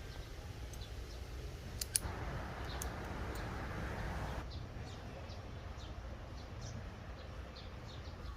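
Quiet outdoor ambience with small birds chirping, many short high falling chirps repeating through the second half. A couple of sharp clicks and a brief rustling hiss come about two seconds in.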